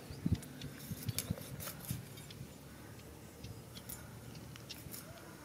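Knife blade scraping and paring the skin off a piece of ginger root, a run of short light scrapes and clicks that is busiest in the first two seconds and then thins out.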